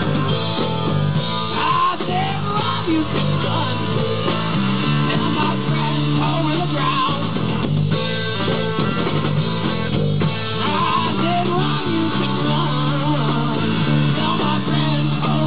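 Live rock band playing: a custom purpleheart-bodied electric bass plays a stepping bass line under electric guitar with bending lead notes and a drum kit.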